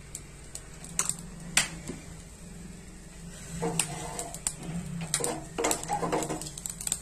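Wooden spatula knocking and scraping in an oiled kadai. A few sharp taps in the first two seconds, then busier scraping and stirring from about halfway.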